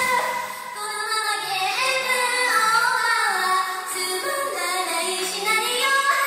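Female idol-group voices singing a pop song over a backing track.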